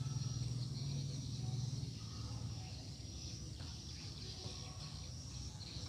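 Insects chirring steadily in the background, with a low hum that fades about two seconds in.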